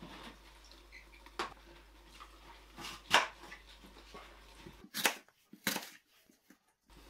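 A knife slicing through an apple onto a plastic cutting board: four short, crisp cuts, the loudest about three seconds in.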